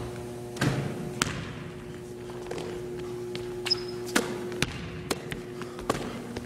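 A basketball thudding on a hardwood gym floor, a handful of separate sharp bounces and knocks echoing in the hall, with a brief squeak near the middle. A steady low hum runs underneath.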